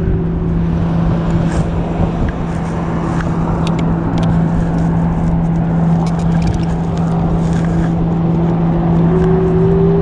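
Gyroor Urban Max C1 electric scooter being ridden: a steady motor hum, with a second, higher whine that rises in pitch near the end. Heavy wind buffets the microphone, and there are a few short clicks.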